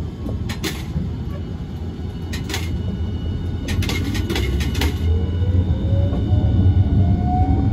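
Hiroshima Electric Railway 1000-class low-floor tram heard from inside the car as it pulls away. A steady low rumble with several clicks and knocks in the middle, then from about five seconds in the electric traction motors' whine rises steadily in pitch as the tram accelerates.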